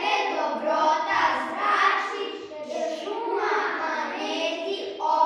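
Young children's voices singing a song together, holding notes and moving from one note to the next.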